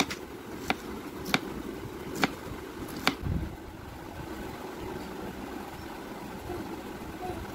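Kitchen knife chopping pineapple on a wooden cutting board: about five sharp knocks of the blade on the board in the first three seconds. Under them is a steady low background hum.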